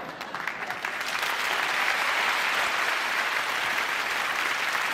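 Studio audience applauding after a punchline, the clapping building over the first second or two, then holding steady.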